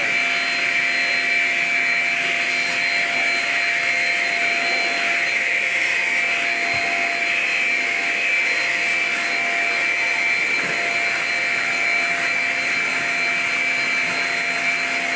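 Shark Rocket self-cleaning vacuum running steadily: a constant motor whine over the hiss of rushing air.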